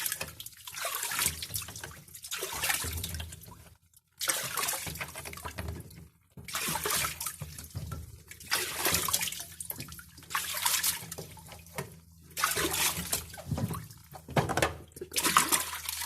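Water running and splashing in irregular bursts, each a second or two long, with short pauses between them.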